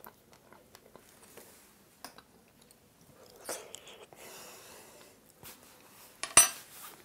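Someone chewing a mouthful of baked potato with sour cream sauce: soft, wet mouth noises and breaths. Near the end comes a single sharp click, the loudest sound.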